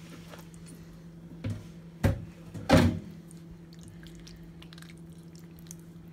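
Hands kneading raw chicken in a thick yogurt tandoori marinade in a bowl: soft wet squishing, with two sharp thumps a little after two seconds in, the second the louder, over a steady low hum.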